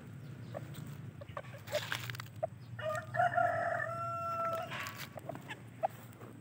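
A Serama bantam rooster crows once, a single call about two seconds long starting about three seconds in, as a territorial display. Short noisy flurries of wing flapping come before and after the crow.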